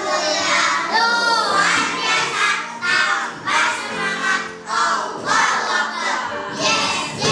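A class of young children singing a song together, many voices in unison, with music.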